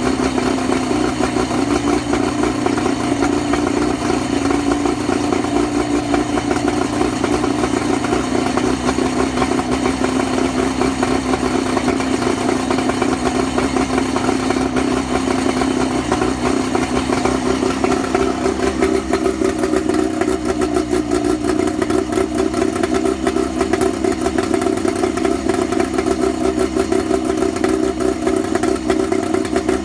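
Johnson 50/35 outboard motor running at low idle, unevenly, with a misfire; its note shifts a little higher about two-thirds of the way through.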